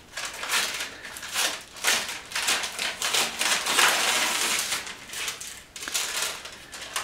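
Plastic-and-paper packaging of a nasogastric tube crinkling and rustling in irregular bursts as the sealed package is handled and opened, busiest about four seconds in.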